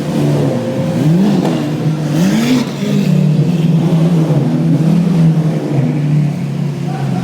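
Lamborghini Aventador's V12 engine revved in two short rising blips, then running steadily.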